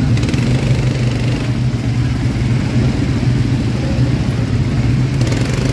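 ATV engine running steadily with an even, low hum.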